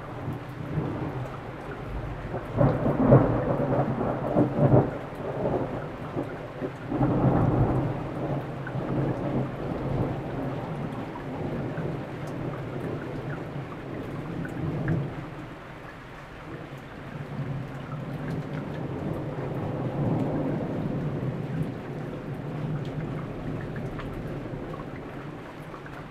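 Thunder rolling during a rainstorm: the heaviest rumbles come about three seconds in and again around seven seconds, then a long lower roll slowly fades. Steady rain and the tick of raindrops run underneath.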